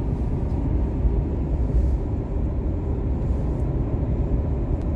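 Car driving along a highway, heard from inside the cabin: a steady low rumble of road and engine noise.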